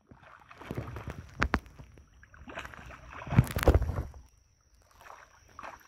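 Hooked fish splashing and thrashing at the surface of a shallow creek, in irregular bursts with a few sharp slaps, the loudest about three and a half seconds in.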